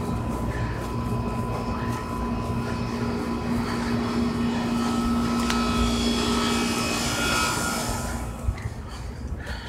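Airplane passing overhead: a steady engine drone with a high whine that grows louder, is strongest about six to eight seconds in, then fades away near the end.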